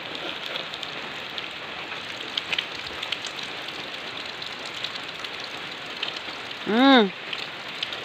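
Light rain falling steadily on ground and leaves, an even hiss with scattered drop ticks. About seven seconds in, a short loud vocal call that rises and falls in pitch.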